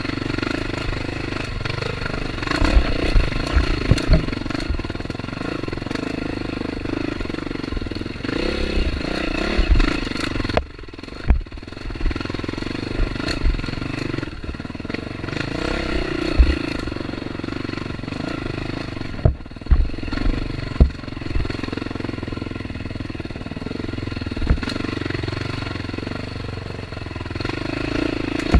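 Off-road dirt bike engine running under a rider's throttle, its pitch rising and falling and easing off twice. Scattered knocks and clatter come from the bike.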